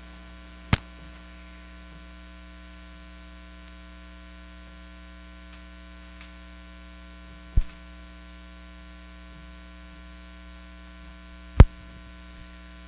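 Steady electrical mains hum from the sound system, broken by three sharp knocks: one about a second in, one past the middle, and the loudest near the end as the lectern microphone is handled.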